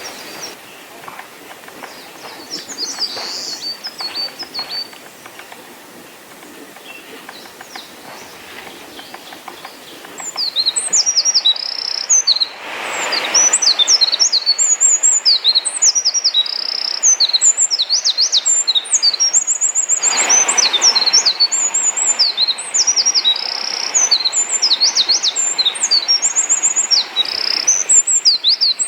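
Eurasian wren singing a loud, long, rapid song of high notes and trills, which starts about a third of the way in. Before it, a few quieter scattered bird calls are heard over a steady hiss.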